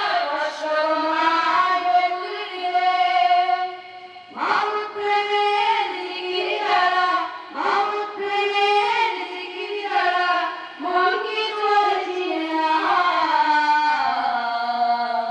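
Boys' voices chanting a melodic Islamic recitation together into a microphone. Long held, ornamented notes come in phrases of about three seconds, with a short breath between phrases.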